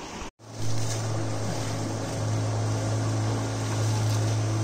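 Motorboat engine running with a steady low hum at an even pitch, starting suddenly just after the start.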